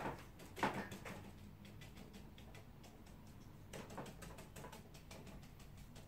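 Light, irregular tapping of a nearly dry, splayed flat brush dabbed again and again onto watercolour paper on a board, stippling in foliage; the firmest dabs come right at the start and just under a second in, with another flurry about four seconds in.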